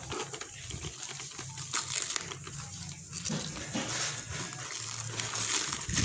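Plastic parcel packaging crinkling and rustling as hands handle the mailer bag and pull at its clear plastic wrapping. The noise grows louder and busier towards the end.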